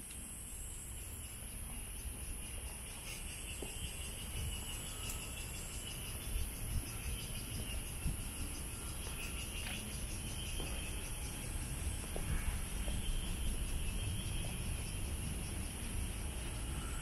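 Summer insect chorus in woodland: a steady high-pitched buzz with a faster, finely pulsing call beneath it, over a continuous low rumble.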